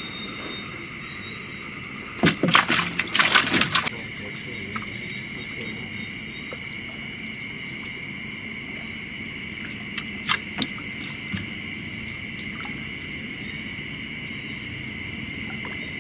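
Steady chorus of night insects, with a loud flurry of sharp knocks and splashes lasting about two seconds, starting about two seconds in. A few sharp clicks come about ten seconds in.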